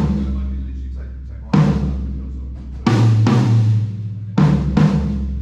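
DW Collectors maple drum kit being sound-checked: low drums struck about four times, roughly every second and a half, often as a quick pair of hits, each left to ring out with a deep, slowly fading tone.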